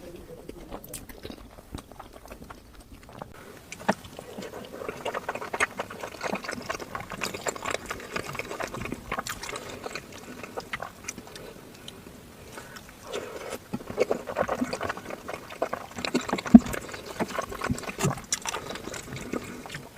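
Close-miked wet chewing, smacking and slurping of a person eating Kayseri yağlama, a sauce-soaked layered flatbread. It is sparse and quieter for the first few seconds, then runs in dense, sticky mouthfuls with frequent clicks.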